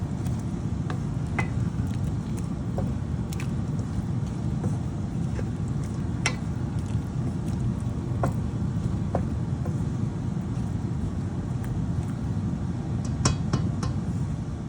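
Steady low rumble from the stovetop as the chicken and sayote cook in broth in the pan, with scattered light clicks.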